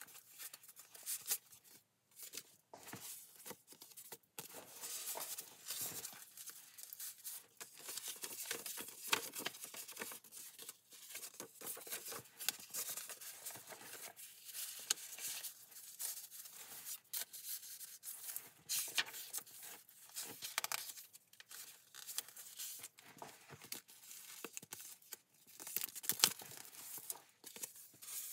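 Paper rustling and crinkling from a handmade junk journal as its pages are turned and small tucked-in paper cards are pulled out and unfolded: an irregular run of short scrapes and crackles.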